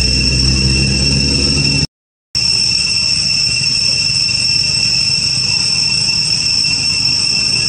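Forest insects droning, a steady high-pitched two-tone buzz with no pauses. A low hum sits under it for the first two seconds, and the sound cuts out completely for about half a second around two seconds in.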